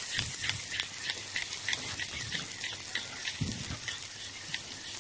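Finely chopped onion, just added to a little hot oil in a frying pan, sizzling with a steady scatter of small crackles as it starts to fry.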